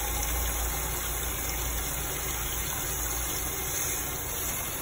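Kitchen tap running steadily, its stream pouring onto live blue crabs in a pot in the sink. A low hum sits underneath and fades near the end.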